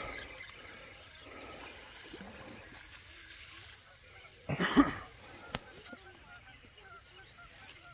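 Birds calling faintly in quick repeated notes, with one louder short sound about halfway through.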